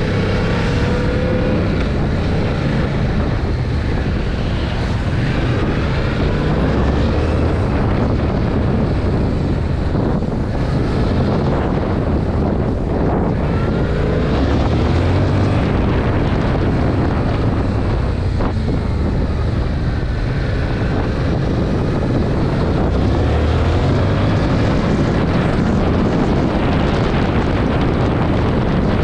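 Stock-exhaust 2021 Yamaha MT-07's 689 cc parallel-twin engine running on the road, its pitch rising several times as it accelerates, with heavy wind noise on the microphone.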